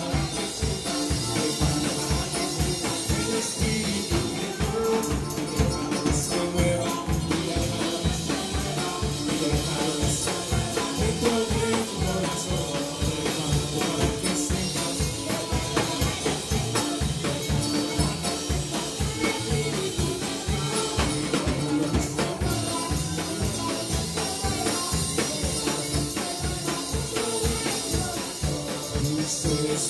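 Live worship band playing an upbeat song on drum kit, electric bass and keyboard, with a steady beat and voices singing along.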